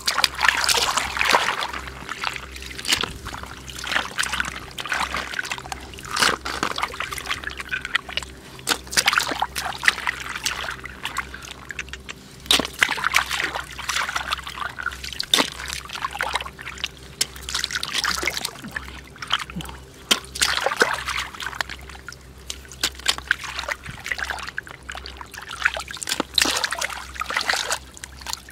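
Hands sloshing and splashing in shallow muddy water, with irregular trickles and splatters, as mud snails are groped for and scooped out. A steady low hum runs underneath.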